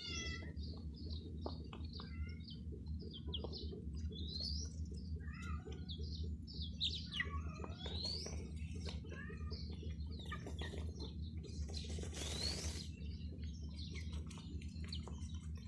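Domestic chicks chirping: many short, high peeps overlapping, some rising and some falling in pitch, over a steady low hum. A brief hiss comes about twelve seconds in.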